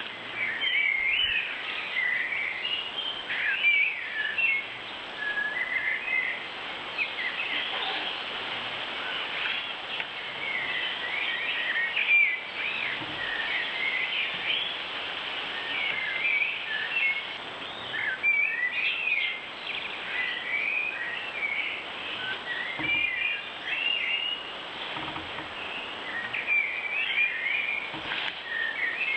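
Garden birds singing: short warbling and chirping phrases one after another, over a steady background hiss.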